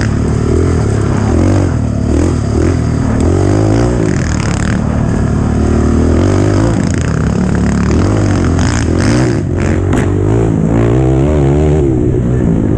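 Dirt bike engine under way, revving up and down with the throttle so its pitch keeps rising and falling. A few sharp knocks come a little past the middle.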